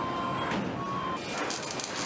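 A few short steady tones in machine noise, then, from a little over a second in, the steady hiss and crackle of a hand-held welding torch working on a steel car-body pillar.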